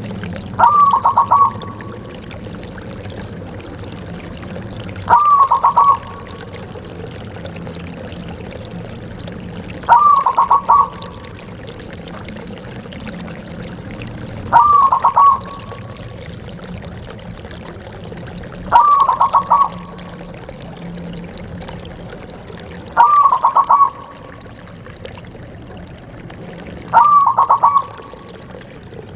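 Zebra dove cooing: seven short, trilled coos, each under a second long and about four seconds apart, over a low steady background hum.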